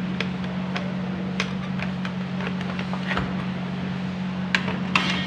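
Scattered sharp metallic clicks of hand tools on an engine being taken apart, over a steady low hum.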